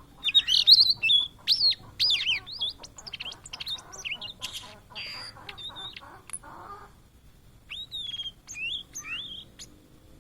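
Blue-and-white flycatcher singing: a long, varied phrase of clear whistled notes mixed with rapid clicky notes, then after a short pause a shorter phrase of whistles near the end.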